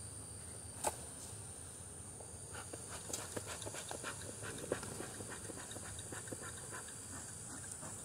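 Bee smoker's bellows pumped over and over, a quick irregular run of short breathy puffs starting a couple of seconds in. A single sharp click comes about a second in.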